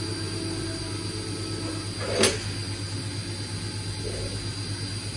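Bench handling noise: one sharp knock about two seconds in and a softer thud about four seconds in, over a steady low hum.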